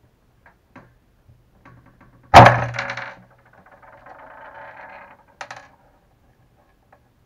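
Hand work on a hard worktop during an RC shock rebuild: a single loud, sharp clack about two seconds in that dies away over about half a second, then light scraping and handling of small parts, and a smaller click a little later.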